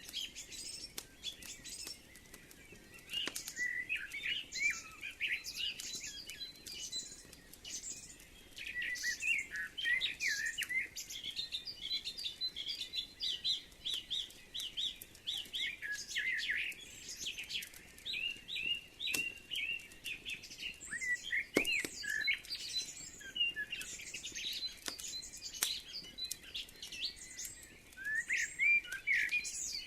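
Songbirds chirping and singing in a busy, overlapping chorus, with a handful of sharp crackles from a wood fire.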